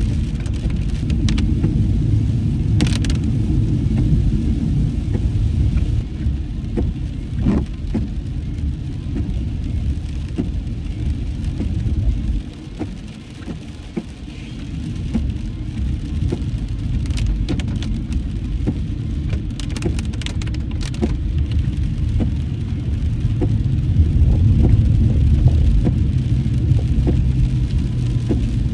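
Inside a moving car in the rain: a steady low rumble of engine and tyres on a wet road, dipping briefly about halfway through, with a few scattered ticks and taps.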